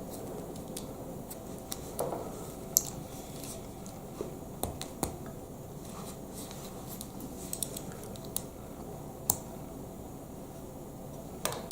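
Lego Technic plastic pieces clicking and clattering as parts are handled and pressed together: scattered sharp clicks at an uneven pace over steady background noise.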